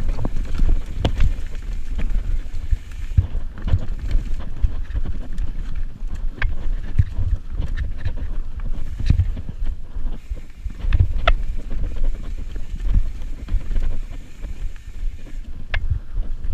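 Mountain bike riding fast down a dirt forest singletrack: wind buffeting the camera microphone as a steady low rumble, with frequent sharp clicks and rattles from the bike as it bounces over the rough trail.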